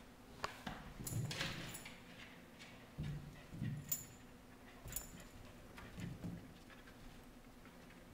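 A corgi rearing up and nosing along classroom desks: scattered soft thumps and bumps, a few light metallic jingles, and a short stretch of sniffing about a second in.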